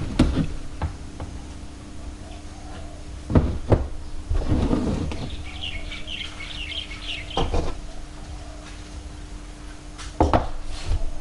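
Scattered knocks and clatter of parts being handled and set down while fitting motorcycle parts, about six in all. A small bird chirps rapidly for about two seconds in the middle, over a faint steady hum.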